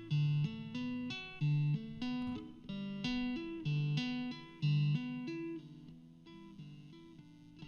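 Slow instrumental music: a plucked guitar picking a repeating pattern of single notes, about two a second, that thins out to a fading held note near the end.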